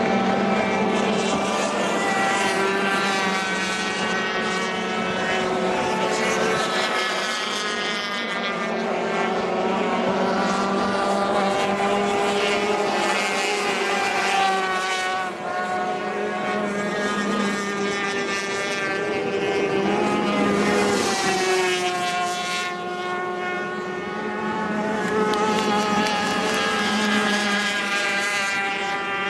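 Several 350cc two-stroke racing outboard engines running at high revs as the tunnel-hull race boats pass, more than one engine note at once, each rising and falling in pitch as the boats go by and throttle through the turns.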